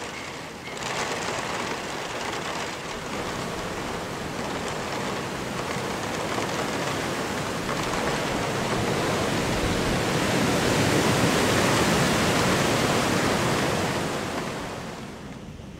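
Wind rushing through eucalyptus trees, swelling louder in the middle and dying away near the end.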